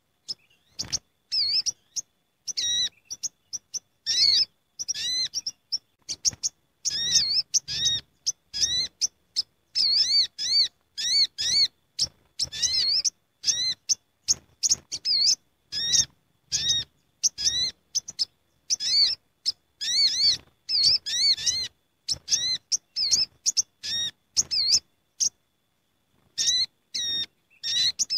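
Several olive-backed sunbirds calling together in a busy, noisy chorus: a dense run of short, sharp, high chirps with quick rising-and-falling notes, easing off briefly near the end.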